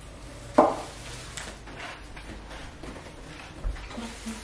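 Plastic-wrapped storage bins being handled and set down on a kitchen countertop: one sharp knock about half a second in, light rustling and small clicks, and a dull thump near the end as a bin is stacked.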